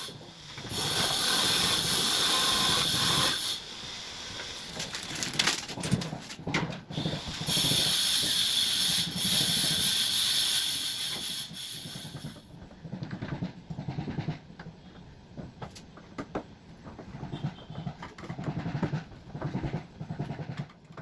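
Two long bursts of loud hissing noise, each several seconds long, with scattered knocks and clicks between and after them.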